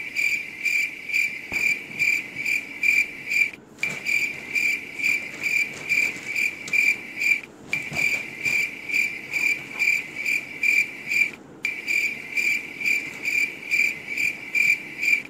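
Cricket chirping in a steady, regular series of chirps, about three a second, with three brief gaps. It starts and stops abruptly with the shot, as an added sound effect.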